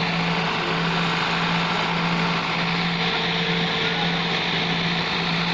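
Fiat 640 tractor's diesel engine running steadily with an even, unchanging hum.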